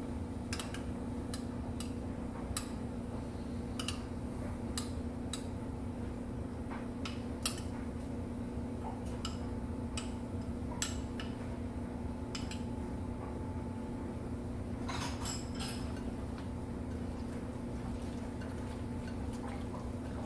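A metal spoon clinking against a small glass bowl as seasoning paste is scooped out, in short sharp clinks at irregular intervals with a brief flurry near the middle, over a steady low hum.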